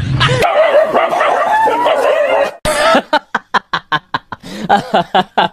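A dog crying out in high, wavering yelps and whines for about two seconds. After a sudden break comes a fast run of short, sharp sounds, about five a second.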